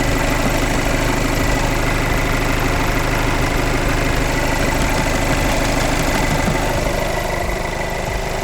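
SEAT Leon engine idling steadily, with a light rattle that the owner suspects comes from a loose panel near the under-hood area or a forgotten bolt.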